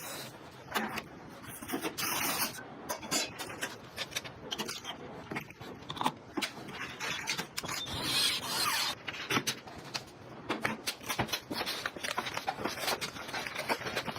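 Hands assembling a desktop gaming PC: a dense run of small clicks, taps and knocks of parts being handled and fitted. There are longer scraping or rustling passages about two seconds in and again around eight seconds.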